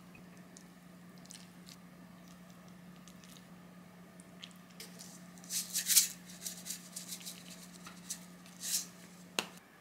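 Food being plated into a ceramic dish: light clicks of wooden chopsticks pressing rice, then a spoon scooping and setting down stir-fried spinach with soft squishing and scraping, loudest about six seconds in, and a short patter of sesame seeds near the end. A low steady hum runs underneath and cuts off just before the end.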